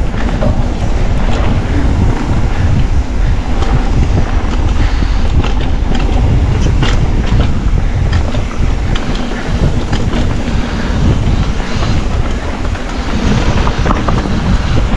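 Wind buffeting a GoPro's microphone on a mountain bike riding down a rough trail. Under it run tyre noise and frequent short rattles and knocks from the bike over the ground.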